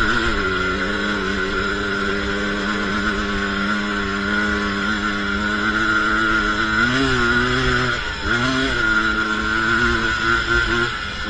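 ATV engine running under steady throttle while riding. In the second half the engine note rises and falls a couple of times as the throttle is worked.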